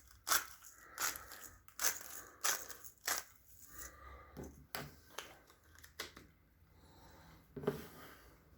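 Pepper mill being twisted to grind cracked pepper: a run of sharp crunching clicks, about two a second, that thins out after about three seconds, with one more click near the end.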